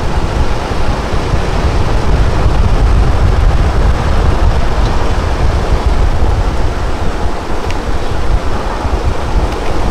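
Car driving slowly, heard as a steady, loud rumble of wind buffeting the microphone and road noise, with no clear engine note.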